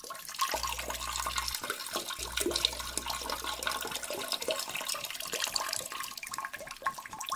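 Water running and splashing in a toilet bowl: a continuous rushing trickle, with a low hum in the first half.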